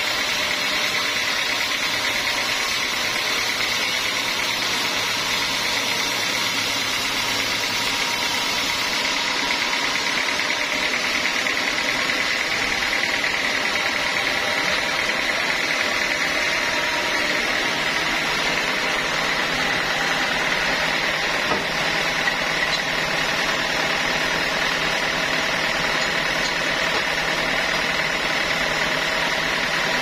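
Band sawmill running steadily, its band blade sawing through a teak log, with a constant machine drone and a faint held whine.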